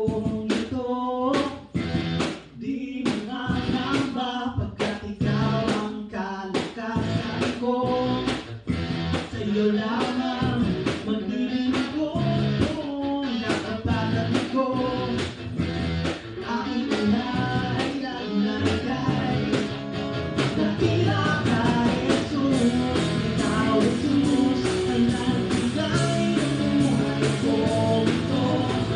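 A band playing a song, with guitar over drums keeping a steady beat.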